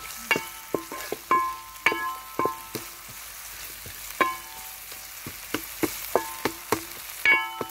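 Wooden spatula knocking and scraping on a pan while stirring sliced onions and garlic browning in oil. Each stroke makes the pan ring briefly, over a faint sizzle; the strokes come quickly and irregularly, with a pause of about a second midway.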